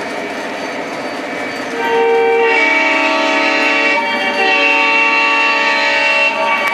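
Lionel O-gauge Southern Pacific heritage diesel #1865's onboard sound system sounding a multi-chime diesel horn. Two long blasts start about two seconds in, with a third beginning at the end. Under the horn is the model's diesel engine rumble and the running of its wheels on the three-rail track.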